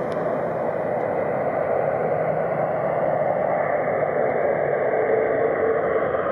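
Steady roar of a wide-body jet airliner as it flies low over the runway and touches down on its main landing gear.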